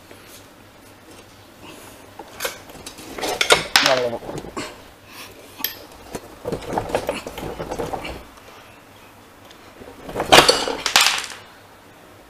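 Metal clinking and rattling as a motorcycle's rear axle, its nut and spacers are worked loose and slid out of the swingarm. The clinks come in three bursts: about three seconds in, around seven seconds, and again near the end.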